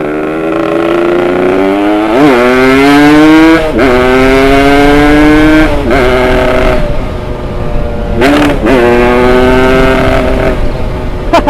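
Heavily upgraded two-stroke Yamaha RX Special motorcycle engine accelerating hard up through the gears. The pitch climbs in each gear and drops sharply at three quick upshifts, then the rider eases off, blips the throttle briefly and holds a steady cruise.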